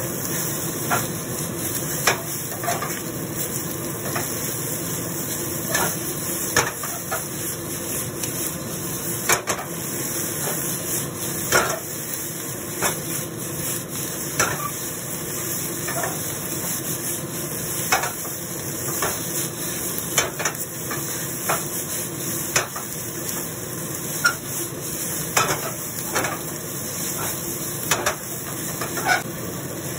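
Fried rice sizzling in a wok as it is stir-fried with a spatula, with irregular clacks and scrapes of the spatula against the pan every second or so over a steady frying hiss.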